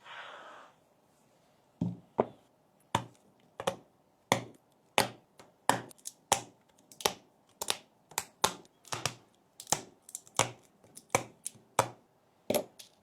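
Keys of a mechanical gaming keyboard pressed one at a time, giving about twenty sharp separate clacks at roughly two a second, after a brief soft rustle at the start.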